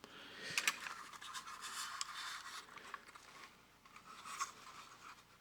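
Faint scratching and light clicks of a tin toy robot being handled and turned over in the hands.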